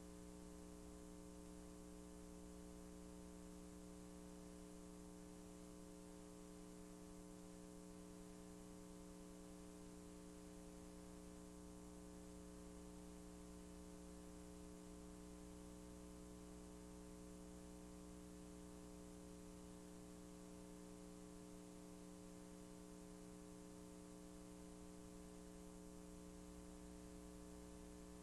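Near silence: a faint, steady electrical hum with hiss and no other sound.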